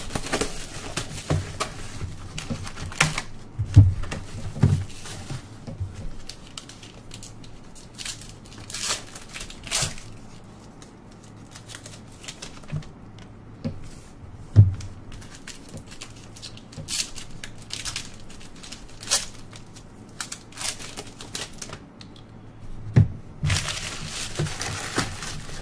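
A box of trading cards being unwrapped and opened: plastic wrap and card-pack wrappers crinkling and tearing, with many sharp clicks and taps of cardboard and cards being handled. The longer rustling comes at the start, around nine seconds in and near the end.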